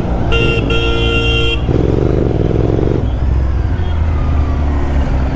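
A vehicle horn honks twice, a short toot and then a blast of about a second, over the steady low running of a Royal Enfield Continental GT 650's parallel-twin engine in traffic.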